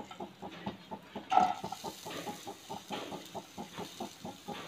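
A little hot oil in a nonstick frying pan crackling irregularly as chopped garlic, ginger and onion are dropped in by hand to sauté. A brief pitched call sounds about a second and a half in.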